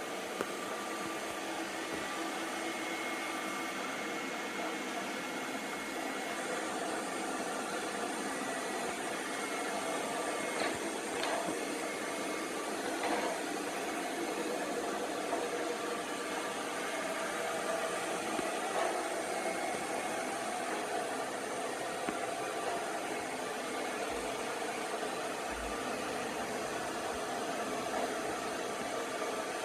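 Light 'N' Easy robot vacuum cleaner running: a steady motor hum and whine, with a few light knocks scattered through.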